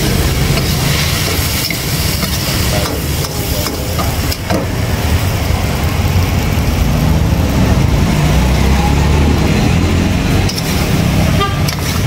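A metal spatula scraping and tossing stir-fried beef in a wok, with a few sharp clicks of metal on the pan, over a loud, steady low rumble.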